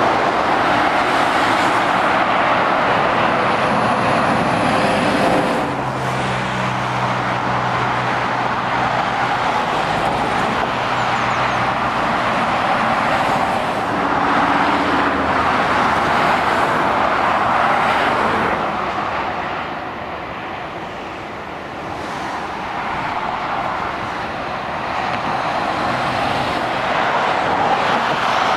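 Motorway traffic of lorries and cars passing below: a steady roar of tyres on the road. A low hum comes in from about six to twelve seconds, and the roar eases to a quieter lull around twenty seconds in.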